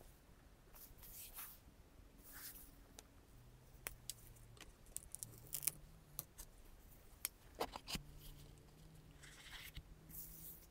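Quiet handling of cardboard smartphone boxes by gloved hands: soft rustles, scrapes and light clicks as a box is opened and a box lid is slid off, with a sharp click about three quarters of the way through.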